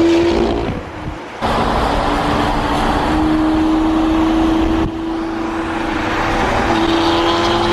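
Supercar engines running at a steady cruise, one engine tone rising slowly in pitch, over a constant rush of road noise. The sound changes abruptly about one and a half seconds and again about five seconds in.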